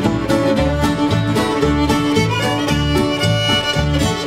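Acoustic string band playing an instrumental break: fiddle carrying the melody over mandolin and guitar chords and a plucked upright bass, with a steady beat.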